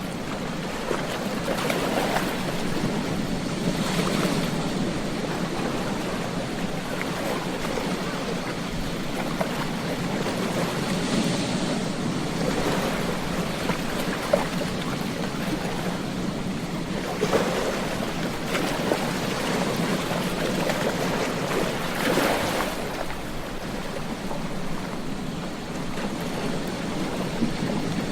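Ocean surf: waves breaking and washing up a beach, swelling in surges every few seconds.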